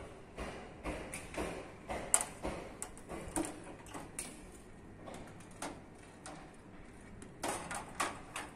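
Scattered light clicks and knocks of a framed window mosquito screen being handled and fitted into the window frame, with a cluster of sharper knocks near the end.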